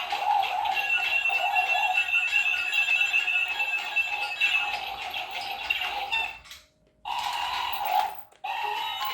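Battery-powered toy robot's electronic robot noises: steady electronic warbling tones, like an alarm, which cut out briefly twice near the end.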